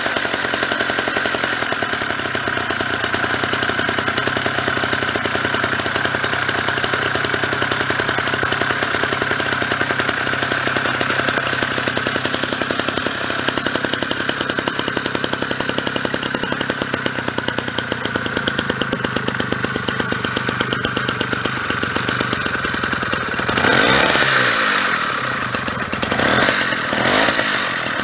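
1954 Honda Cub Type F's 50 cc two-stroke single-cylinder clip-on engine running at a steady idle, then revved up and back down near the end, followed by two shorter blips of the throttle.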